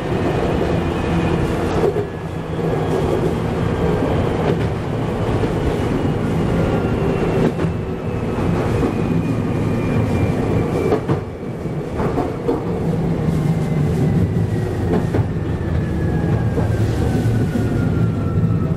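Chichibu Railway 7500 series electric train running, heard from the driver's cab: a steady rumble and hum with the wheels clicking over rail joints now and then, and a thin whine that slowly falls in pitch.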